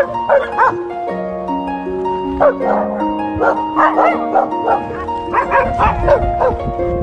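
A pack of dogs barking and yipping excitedly in repeated clusters, over background music of plucked harp-like notes.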